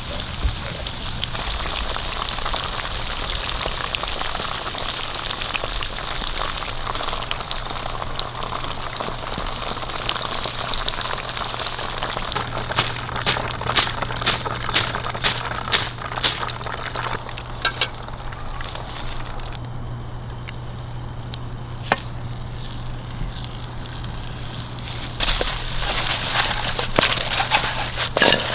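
Food sizzling over a campfire: a steady hiss with clusters of sharp crackles and pops, first through the middle and again near the end.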